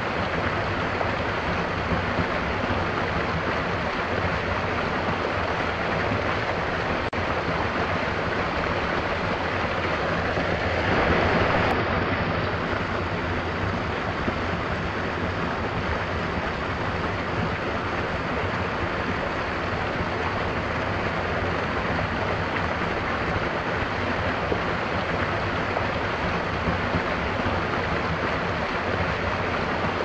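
A small waterfall in a rocky stream, water spilling over rocks into a pool with a steady rushing splash that swells briefly about eleven seconds in.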